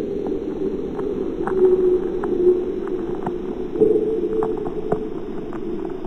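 Low, muffled droning tones with scattered crackles of static, the eerie soundscape of a mock Emergency Alert System broadcast. About four seconds in the drone steps up to a louder, higher tone.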